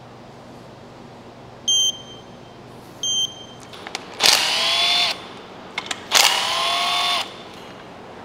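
A digital torque wrench beeps twice, short and high, as it signals the target torque. Then a cordless driver spins twice for about a second each, its motor whine falling away as each run ends.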